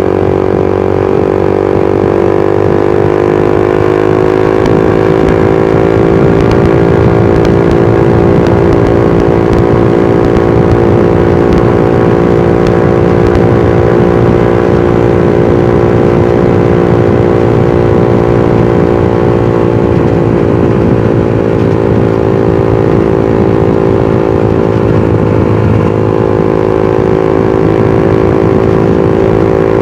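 Suzuki GSX-R150's single-cylinder engine and exhaust running under way: the pitch climbs gently over the first several seconds as the bike gathers speed, then holds steady at cruise, sagging slightly about two-thirds of the way through before settling again.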